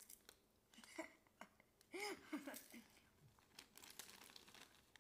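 Faint crinkling of a plastic zip-top bag of popcorn being handled, with a few soft clicks and rustles.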